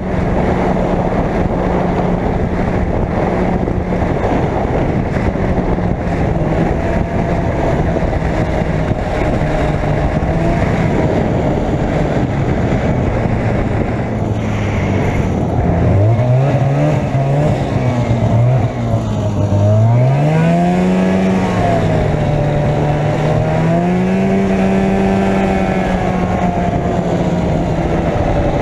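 Arctic Cat Jag 440 snowmobile's two-stroke twin engine running at a steady pitch, then dipping and rising in pitch several times past the middle as the throttle is eased off and opened again, before settling back to a steady pitch.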